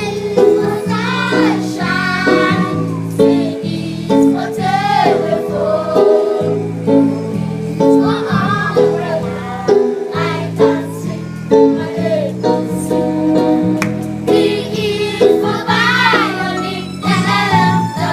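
Music: a song with singing voices over a bass line and a steady beat.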